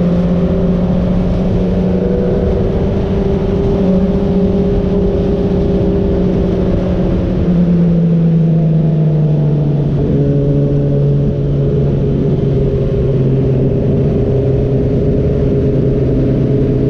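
Motorcycle engine running at steady cruising revs with wind rush; the engine note drops about halfway through and settles lower again a few seconds later as the revs ease off.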